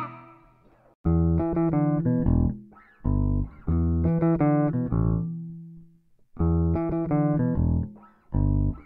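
Background music of plucked guitar over bass, played in short phrases with brief pauses between them.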